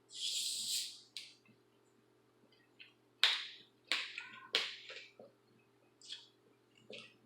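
Close-up eating sounds: a few sharp, crunchy bites into hard taco shells, each followed by a short stretch of chewing, with a hissy slurp or sniff near the start.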